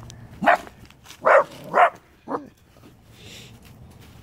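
A small dog barking four times in quick succession: sharp, loud barks about half a second apart, then it stops.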